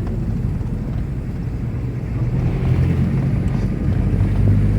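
Moving motor vehicle heard from inside: a steady low engine hum with road noise.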